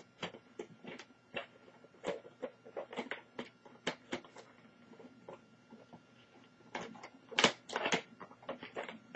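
Scattered clicks and taps of hard plastic laptop case parts being handled and snapped into place, with a louder cluster of clicks about seven and a half seconds in.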